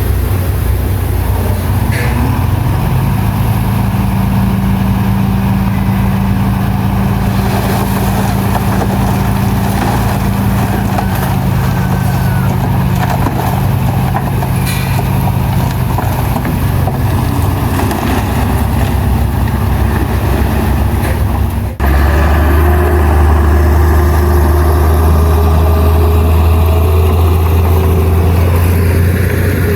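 Heavy diesel earthmoving machinery running at work, its engine pitch shifting under load. About 22 seconds in, the sound breaks off abruptly and a steadier, deeper engine drone takes over.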